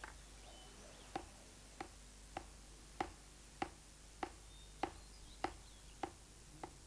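A hand hammer striking a small copper ingot on an anvil, forging it flat. There are eleven sharp metallic strikes at a steady pace of about one every 0.6 seconds, each with a short ring.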